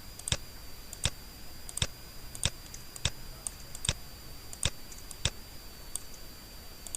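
Computer mouse clicking, single sharp clicks about once every three-quarters of a second, as faces are picked one after another. A faint steady high whine sits under the clicks.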